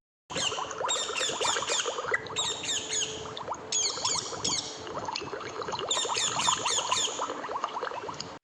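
Parrot calls: a rapid string of short chirps and squawks, several a second, over a background hiss.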